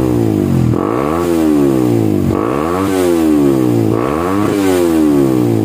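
Suzuki GSX-R150's single-cylinder engine revved through its stock muffler, hollowed out inside, with the pitch rising and falling about three times. It is a fierce roar, and the revs climb quickly.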